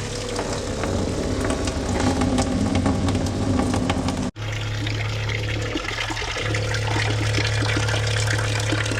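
Liquid being pumped, with a small pump motor humming steadily under rushing, splashing fluid, likely beet-juice ballast going into a tractor tire. The sound drops out for an instant about four seconds in.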